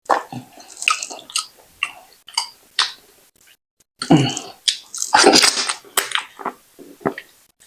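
Close-up wet eating sounds: a person chewing and swallowing fufu with slimy ogbono soup, with irregular smacking, squishing mouth noises, loudest about four to six seconds in.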